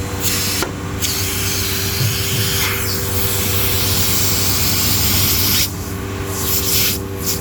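CNC vacuum table's pump running with a steady hum while air hisses loudly as it is sucked in through the open top hole of a vacuum pod. The hiss breaks off briefly about a second in and again for about a second near the end.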